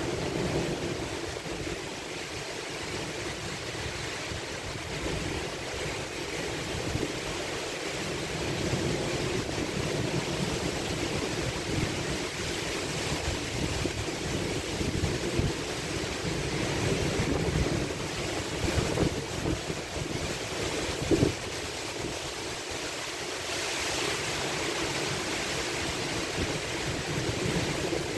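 Thunderstorm downburst: heavy rain and gusting wind, a steady rushing with low rumbles of wind on the microphone. One short thump about two-thirds of the way in.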